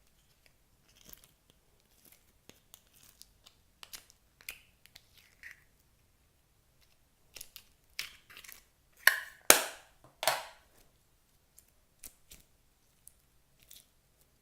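Hands working clear slime: scattered small sticky clicks and crackles, with a few louder squelching pops about nine to ten and a half seconds in.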